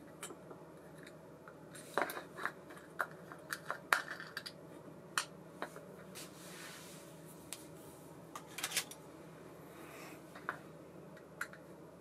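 Small metal baitcasting-reel parts clicking and clinking as they are handled, in irregular sharp ticks that cluster a couple of seconds in and again later, over a steady low hum.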